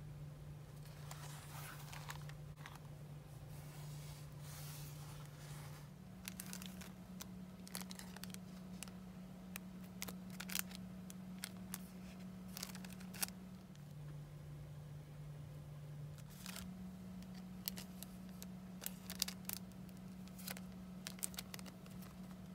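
Clear cellophane bags and paper die-cuts crinkling and rustling as they are handled, with scattered small crackles and clicks. A steady low hum runs underneath, shifting between two pitches a few times.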